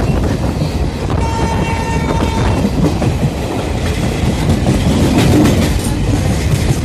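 Broad-gauge express train passing close by, its wheels rumbling and clattering on the track. The locomotive's horn gives one blast about a second in, lasting about a second and a half.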